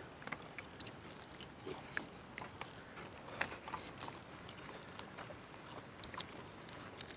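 Faint eating sounds: hands mixing rice with curry and tearing apart fried chicken, with chewing, heard as scattered soft clicks and smacks.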